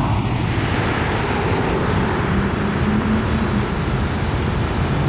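Steady road traffic noise from cars passing on a street, with the hum of an engine standing out briefly about halfway through.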